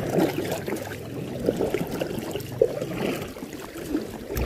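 Seawater splashing and gurgling in many quick, irregular little splashes.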